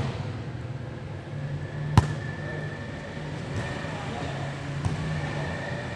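A football kicked during play: one sharp thud about two seconds in, the loudest sound, and a fainter knock near the end.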